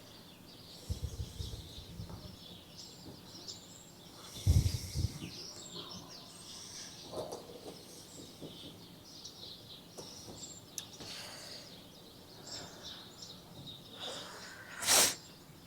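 Faint bird chirps in the background, with soft knocks from wooden frame pieces being handled and fitted, about a second in and again near five seconds in, and a sharp click near the end.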